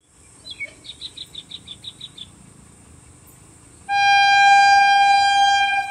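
A bird gives a quick run of about ten high chirps, then about four seconds in a WAG-7 electric locomotive's horn sounds one long, steady single-tone blast of about two seconds, the loudest sound here. A steady high insect hiss lies underneath.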